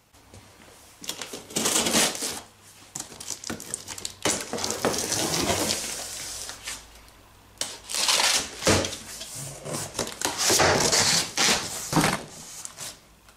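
Large cardboard box being opened by hand: cardboard flaps scraping and rubbing, with crinkling of plastic wrapping and small knocks, in a series of rustling bursts.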